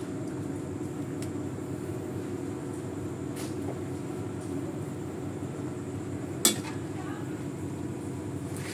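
A steady low hum under light kitchen clinks, with one sharp metal clank about two-thirds of the way through: a metal ladle striking an aluminium wok during stir-frying.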